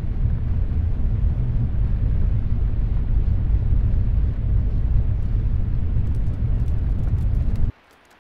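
Steady low rumble of road and engine noise inside a moving car's cabin. It cuts off suddenly near the end, leaving a faint patter of raindrops on water.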